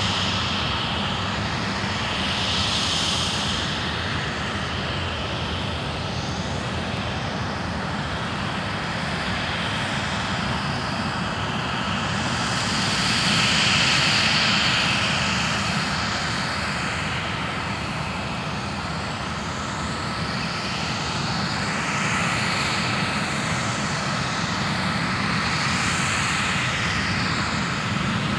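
The twin GE90 jet engines of a Boeing 777-300ER airliner on landing approach make a steady jet noise with a shifting, sweeping hiss up high. The noise swells to its loudest about halfway through as the plane passes close by just above the runway, then goes on as it rolls out.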